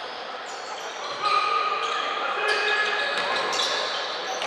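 Basketball game on an indoor court: the ball bouncing on the wooden floor amid players' voices echoing in the large hall, louder from about a second in.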